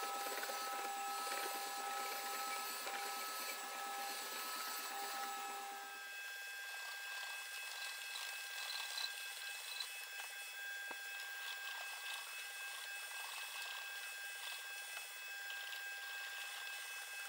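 Hand file scraping back and forth along the edge of a wooden block, in repeated rasping strokes.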